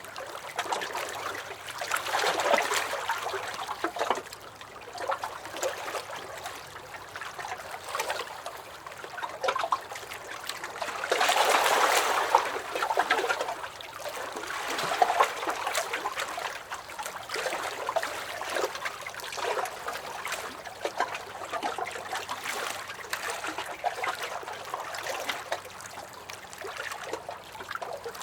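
Small lake waves lapping and sloshing against a dock, irregular splashes and gurgles that swell and ease every few seconds, with the strongest surge about eleven seconds in.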